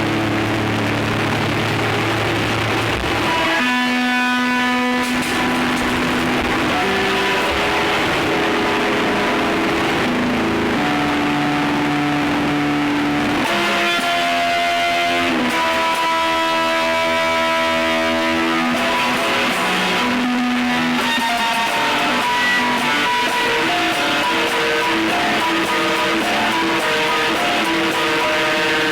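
Dark ambient noise music: held, droning tones that shift in pitch every second or two over a dense hiss, at a steady level.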